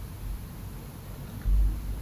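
A single dull, deep thump about one and a half seconds in, over a steady background hiss.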